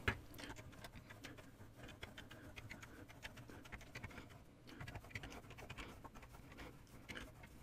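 Faint rustling and light clicks of yarn being wrapped around the plastic pegs of a KB Super Afghan loom.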